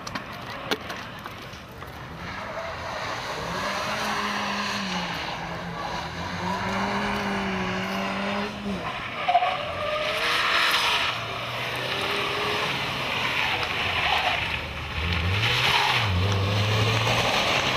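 Small hatchback's engine running hard at high revs around an autocross course; its note drops and climbs again a few times. Tyres squeal briefly in the turns.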